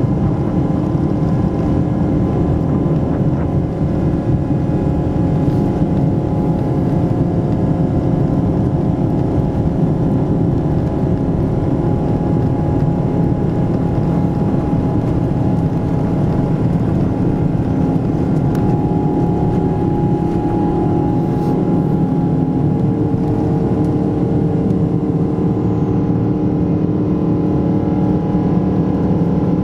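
Cabin noise inside a Boeing 777-200ER on departure: its twin jet engines running at high thrust, with rushing airflow and a few steady hums.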